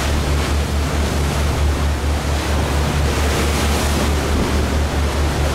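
Wind buffeting the microphone on the deck of a small cruise ship under way, with the sea rushing along the hull and a steady, evenly pulsing low throb underneath.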